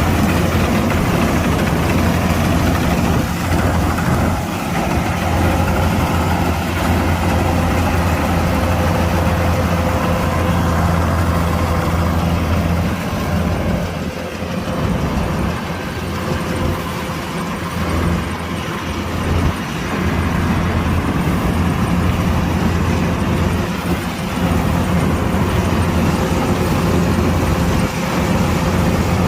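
Kubota DC-105X combine harvester's diesel engine running steadily, a continuous low hum with a steady whine from the machinery, easing slightly for a few seconds mid-way.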